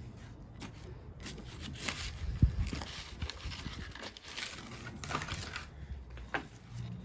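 Scraping, rustling and clinking as copper winding wire and metal parts are pulled from an old welder's transformer, with one sharp knock about two and a half seconds in.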